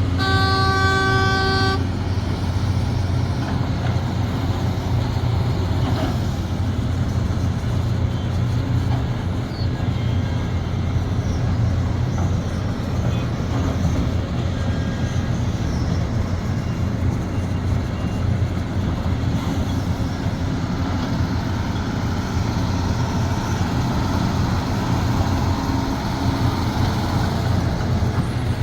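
Heavy diesel engine of a Sumitomo SH370LHD-6 excavator running steadily. A horn sounds once near the start, a single blast about a second and a half long.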